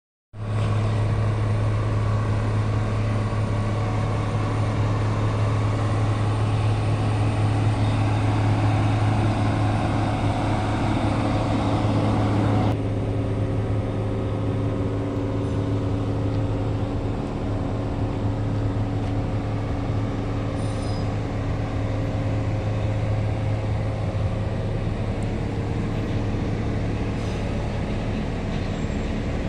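Steady low mechanical hum with several steady tones over it, changing abruptly about halfway through as the higher hiss drops away.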